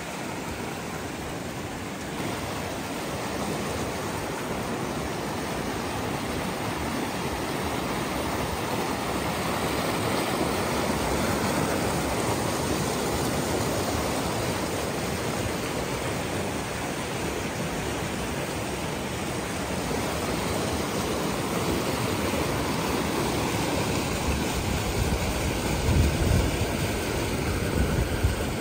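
Shallow mountain river rushing and churning over rocks, a steady full white-water noise. A few low bumps stand out near the end.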